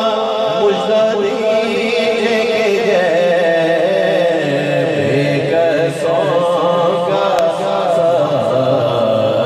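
A man singing a naat, an Urdu devotional poem, into a handheld microphone, in a chant-like style with long, wavering, ornamented held notes.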